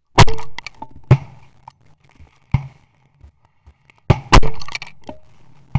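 Shotguns firing at incoming ducks: a volley of about six shots over five seconds from more than one gun. The loudest blasts come near the start and about four seconds in, the second of them close behind a fainter shot.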